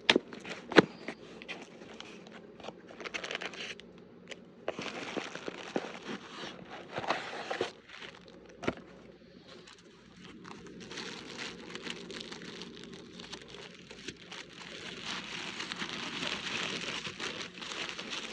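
Packaging being handled and unwrapped, with irregular crinkling and rustling. A few sharp clicks or knocks come through, the loudest about a second in.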